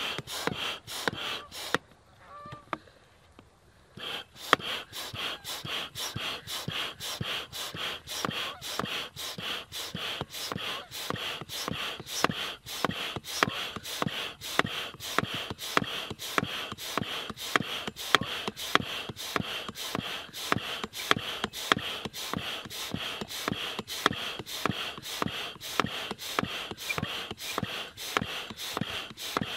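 Stand-up hand pump inflating an inflatable stand-up paddle board: a quick, even rhythm of hissing air strokes as the handle is worked up and down, with a short break about two seconds in.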